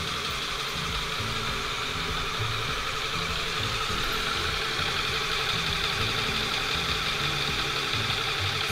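Small Lego electric motors running with a steady whir and uneven throb: the gantry crane's drive motors moving a container, together with the motor-driven Lego pneumatic compressor. The whir grows a little louder about halfway through.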